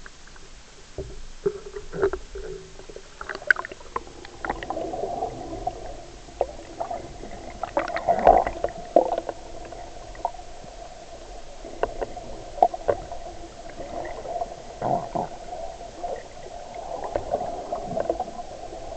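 Muffled gurgling and rushing of a fast river current heard underwater, through a submerged action camera's waterproof housing, with scattered knocks and clicks.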